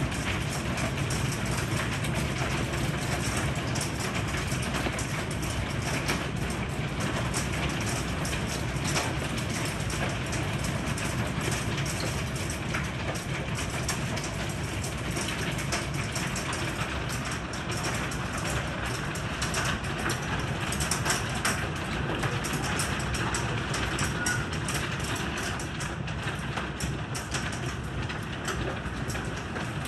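Heavy rain and hail pelting a wooden deck and railing: a steady downpour hiss dotted all through with sharp clicks of hailstones striking.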